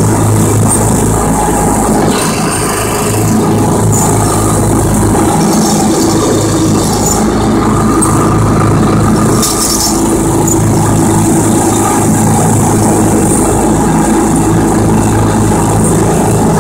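Riding lawn tractor's engine running steadily as the tractor mows, its low hum dipping slightly a couple of times.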